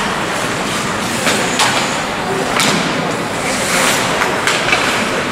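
Ice hockey play: skates scraping across the ice and a few sharp clacks of sticks on the puck over a steady rink hubbub.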